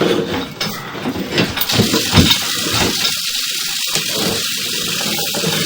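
Water running in a steady rush that starts about a second and a half in, after a few knocks and clatter.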